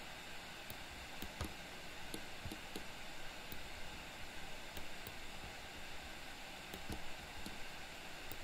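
Steady hiss of a microphone's noise floor with scattered faint clicks and taps at irregular intervals, from a computer mouse being worked.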